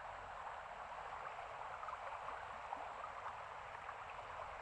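Floodwater running steadily in a small stream, an even, constant sound of moving water.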